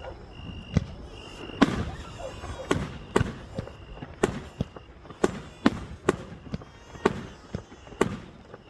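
Fireworks bursting in quick succession: a string of sharp bangs, about two a second, each with a short echoing tail.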